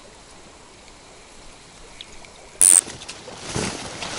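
Faint steady flow of a small river, broken about two and a half seconds in by a brief, loud swish, followed by louder rustling and splashing noise.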